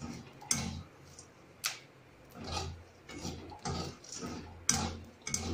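Metal spatula stirring and scraping coarse hot salt with black chickpeas in an aluminium kadhai, with soft scraping swells and four sharp clicks spread through.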